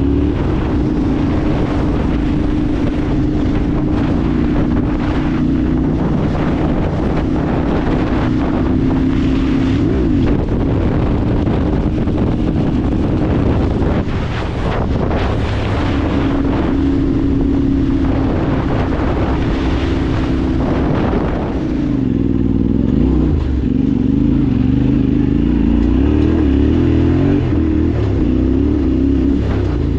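Vehicle engine running steadily under way, with wind rushing over the microphone; the engine note shifts and wavers about two-thirds of the way through.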